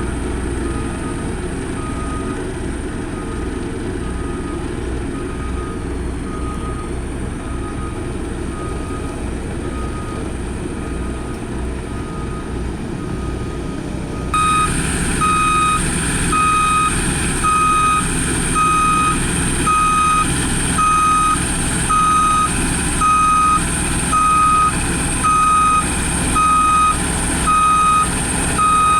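Heavy road-building machine's engine running steadily while its reversing alarm beeps evenly, about once every second and a half. About halfway through, the sound steps up and the beeps become much louder.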